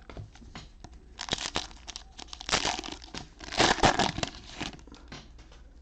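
Cellophane wrapper of a Panini Mosaic football cello pack crinkling and tearing as it is handled and opened, in irregular crackly bursts that come and go over a few seconds, loudest a little past the middle.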